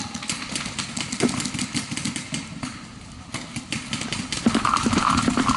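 Paintball markers firing: a fast, irregular string of sharp pops, with the pace and noise picking up near the end.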